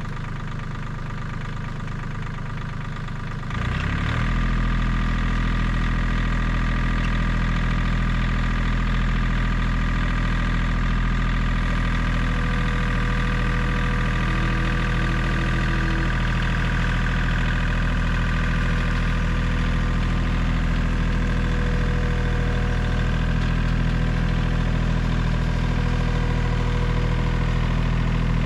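A John Deere compact tractor's engine idling, then throttled up about four seconds in and running steadily as it pulls a trailer loaded with logs.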